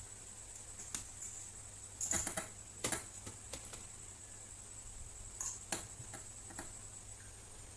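Plastic clicks and short scraping taps from a laptop's plastic case as it is pried apart, a handful of irregular snaps with the loudest clusters about two and three seconds in and again near six seconds.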